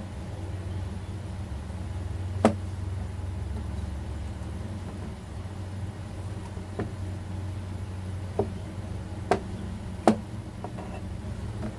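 Kitchen knife chopping through sausages onto a plastic cutting board: a handful of sharp, separate knocks spread through, the loudest about two and a half seconds in and near the end. A steady low hum runs underneath.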